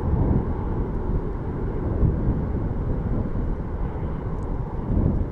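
Boeing 747-400's four jet engines at high thrust on the takeoff roll, heard from behind as a loud, deep, steady rumble.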